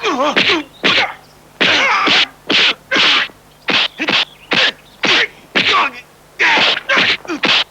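Kung fu film fight soundtrack: a rapid string of short shouts and grunts from the fighters, mixed with dubbed punch and swish sound effects, about two a second.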